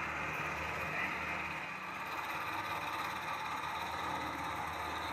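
Military helicopter running on the ground, a steady engine and rotor noise with a low hum that eases off about two seconds in, heard played back through a screen's speaker.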